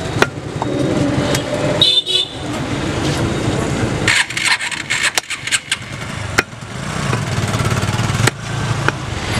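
Butcher's cleaver chopping goat meat on a wooden stump block: sharp knocks now and then, with a quick run of them about four to six seconds in. Behind them runs steady street traffic, with a vehicle horn sounding about two seconds in.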